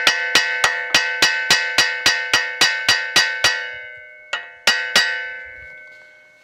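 Hammer striking a new wheel stud in a Subaru Forester's wheel hub, a steady run of taps about three or four a second, each leaving a bell-like metallic ring. After a short pause come three more blows, and the ring dies away. The taps help seat the stud fully into the hub flange where pulling it in with the nut had become too tight.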